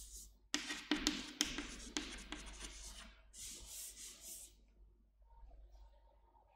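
Chalk on a chalkboard: scratchy strokes and sharp taps as words are written, then a softer stretch of rubbing as chalk writing is wiped off the board. All of it is faint.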